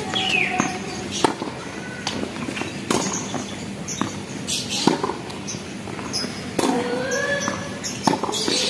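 Tennis rally on a hard court: sharp pops of the ball struck by rackets and bouncing off the court surface, every second or two.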